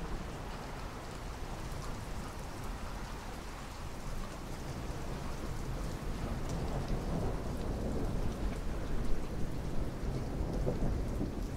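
Steady heavy rain, with a rolling rumble of thunder that swells from about halfway through, is loudest a little after that, then eases.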